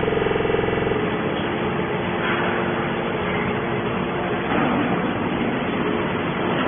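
Hydraulic metal baler running: a steady, loud machine noise. About a second in, a strong pitched hum at the start gives way to a rougher, even din.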